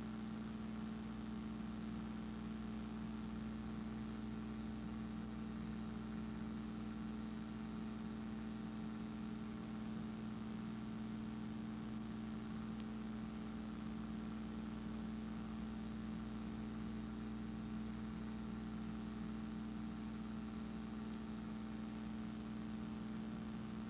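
A steady, unchanging machine hum with a low droning tone.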